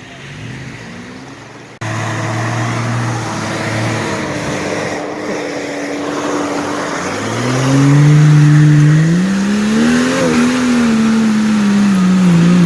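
Off-road vehicle's engine running, cutting in loud and abruptly about two seconds in, then revving up with rising pitch from about seven seconds in and easing slightly toward the end.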